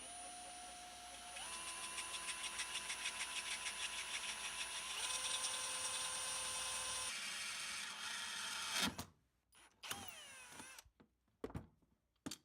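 Power drill running, boring through the chainsaw's clutch cover plate, which is thought to be magnesium. The motor's pitch steps up about a second in and the drilling pulses evenly for a few seconds. It stops about nine seconds in, followed by a few short clicks.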